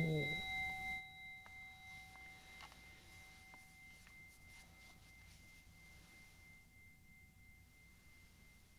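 A small Buddhist altar bowl bell rings out after being struck, a few clear high tones slowly fading away, the lowest dying out about seven seconds in. A chanting voice ends right at the start.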